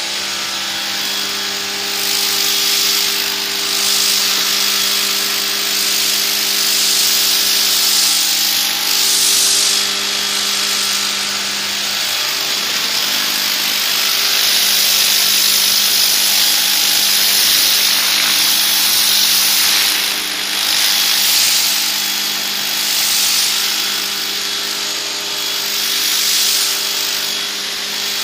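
Pressure washer running, its motor humming steadily under the loud hiss of the high-pressure water jet. The hiss swells and fades as the spray sweeps across the surface, and the motor's tone shifts about twelve seconds in.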